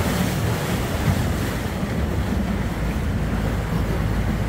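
Wind buffeting the microphone and water rushing and splashing along the hull of a moving boat, over a steady low engine rumble.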